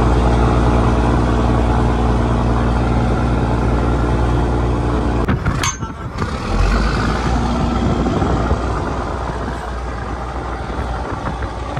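Fishing trawler's engine running with a steady hum. There is a sudden break about five and a half seconds in, after which the engine continues, rougher and noisier.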